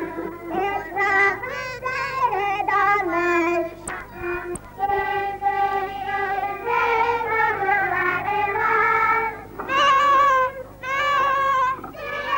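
A group of children singing a song, with an accordion playing along.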